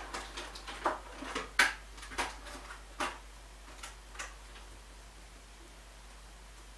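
Egg-shaped makeup sponge dabbing against the skin as concealer is blended under the eyes: a string of irregular taps for about four seconds, then they stop.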